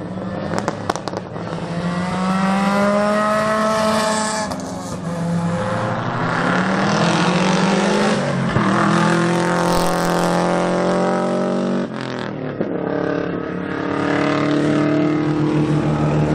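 Race cars accelerating hard past at a sprint event, engines revving up through the gears. The pitch climbs, drops at each gear change with a sharp fall about twelve seconds in, then climbs again as another car comes through.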